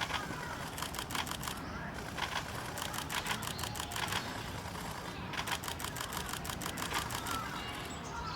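Camera shutters firing in rapid continuous bursts, several clicks a second, in repeated runs of about half a second to a second each.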